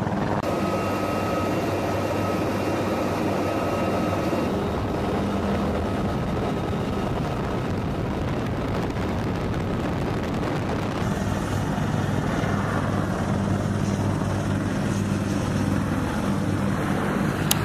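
UH-1Y Venom helicopter running on the ground, its twin turboshaft engines and rotor making a steady drone. A high steady turbine whine sits on top for the first few seconds.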